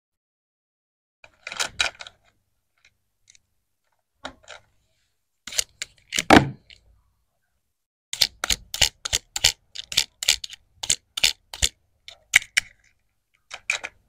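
Hard plastic toy pieces clicking and clacking as they are handled, in scattered groups at first and then in a quick run of about three clicks a second.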